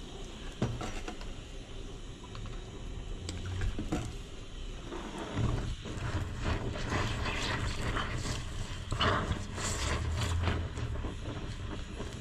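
Metal parts of a Detroit Diesel DW-LS governor core and hand tools clicking, knocking and scraping as it is worked apart. The scraping grows busier and rougher about halfway through.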